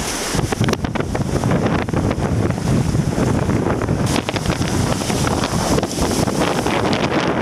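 Strong typhoon wind buffeting the microphone steadily, over the rush of sea water and spray.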